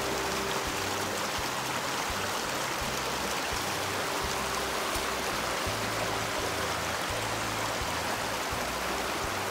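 A small woodland stream flowing steadily with an even rush and trickle of water. Soft music of held low notes plays underneath.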